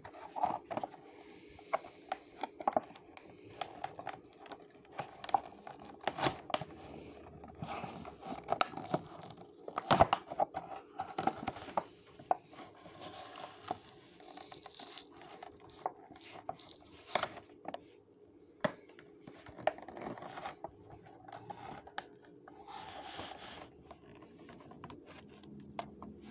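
A Hot Wheels blister card being opened by hand: the cardboard backing tearing and the clear plastic blister crinkling, in irregular crackles, rustles and sharp snaps.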